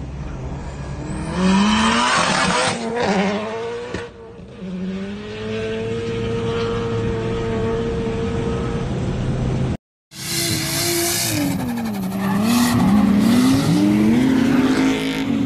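A car's engine heard from inside the cabin, climbing in pitch under hard acceleration. It drops away briefly about four seconds in, then holds a steady high note. After a cut, a drifting car's engine revs up and down over loud tyre squeal as it slides sideways.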